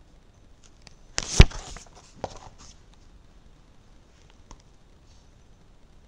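A comic book page being turned: a brief paper rustle with a sharp knock at its loudest point about a second and a half in, followed by a couple of softer rustles and small clicks.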